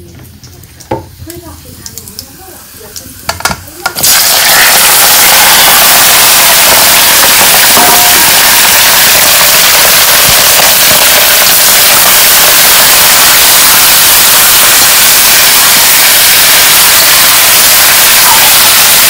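Chopped chicken pieces hitting hot oil in an aluminium karahi and sizzling loudly and steadily. The sizzle starts suddenly about four seconds in; before that there are only a few knocks and clinks of the steel bowl.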